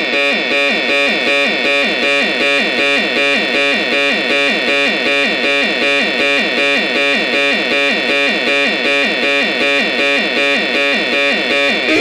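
Homemade minimal-techno synthesizer built into a rusty radio-style box, playing a steady, fast, evenly repeating electronic pulse pattern.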